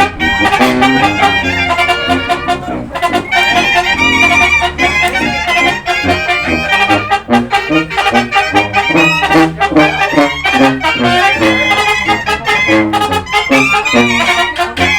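Brass band music: trumpets and trombones playing a melody over drums with snare (tarola) hits.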